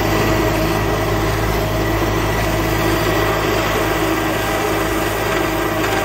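Belarus MTZ-82 tractor's four-cylinder diesel engine running steadily under load while mowing grass, heard from inside the cab.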